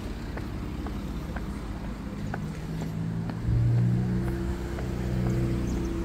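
A car driving along the street close by, its engine running with a steady hum that swells sharply about three and a half seconds in as it draws near, over general street rumble.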